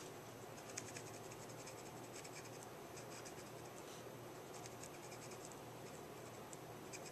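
Faint scratching of a marker's brush tip on cardstock: a run of light, short colouring strokes.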